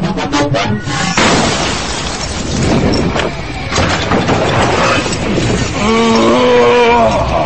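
Film fight-scene sound effects: metal crashes and shattering debris, dense and loud, over a dramatic music score, with held tones swelling up about six seconds in.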